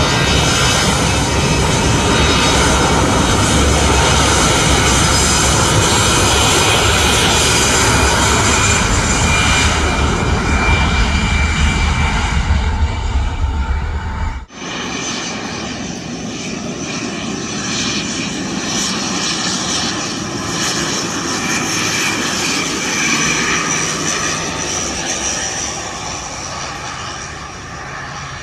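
Airliner engines at high power, loud and continuous with a deep rumble. An abrupt cut about halfway through gives another stretch of aircraft engine noise with less rumble and more hiss, slowly fading.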